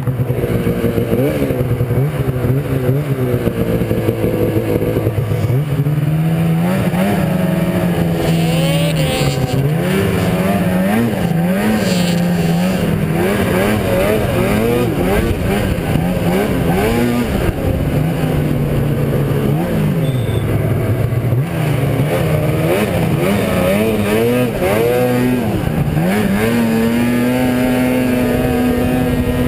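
Arctic Cat ZR 600 snowmobile's two-stroke engine under way, its pitch rising and falling over and over as the throttle is worked, then held steady at a high pitch near the end.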